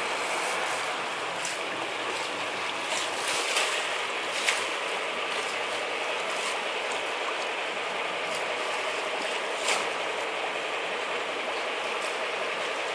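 Steady rush of water along the hull of a boat under way, with a few scattered sharp clicks.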